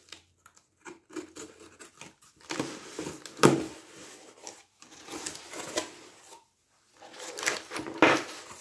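A cardboard shipping box being handled and its flaps pulled open, in short scrapes and knocks with gaps between, the loudest a sharp crack about three and a half seconds in. Near the end, crumpled kraft packing paper rustles and crinkles as a hand reaches into it.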